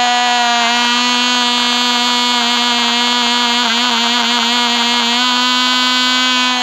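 Cox RR1 .049 rear-rotary glow engine running steadily at high speed with a high, buzzing whine; its pitch wavers briefly around the middle.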